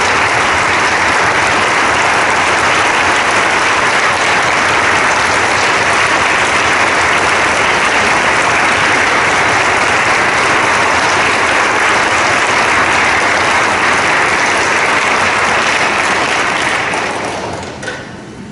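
Audience applauding steadily in a hall, dying away near the end.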